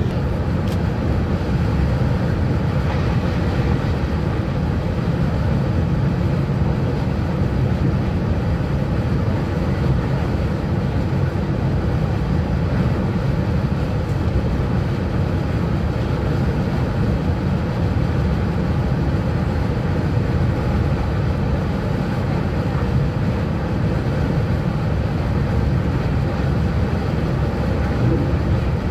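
Steady rumble of a TGV high-speed train running at speed, heard from inside the passenger coach.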